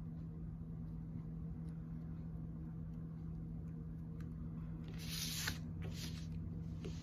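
Steady low hum with faint ticks of clay being handled. About five seconds in come three short scraping rustles as a paper plate is slid across a canvas cloth; the first is the loudest.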